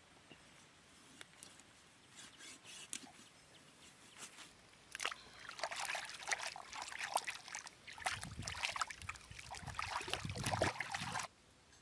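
Hands splashing and sloshing a raw, gutted chicken carcass in shallow water to wash it, starting about five seconds in and cutting off abruptly near the end.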